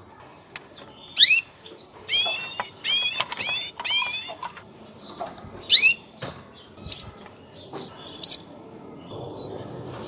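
Female canary giving its mating call: short, sharply rising chirps, some single and a quick run of about five starting around two seconds in.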